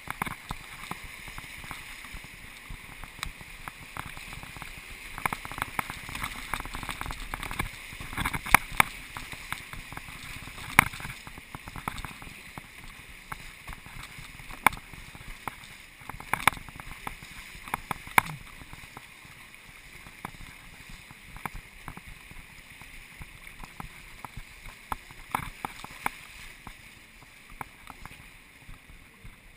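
Rushing river water around a canoe running a riffle, with frequent sharp splashes and knocks against the hull. They are busiest through the middle and ease off in the last third as the water calms.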